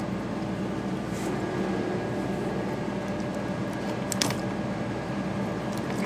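A steady low hum throughout, with small plastic-and-metal clicks about a second in and a sharper pair around four seconds in, as hands work the start relay and wiring on a refrigerator compressor.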